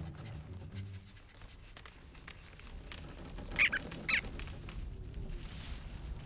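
Two short high squeaks from a cartoon rodent, about three and a half and four seconds in, over faint small clicks and rustles.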